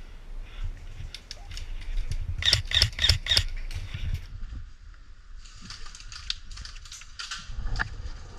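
Airsoft gun firing a quick series of about five sharp shots, then a stretch of rustling hiss with scattered clicks.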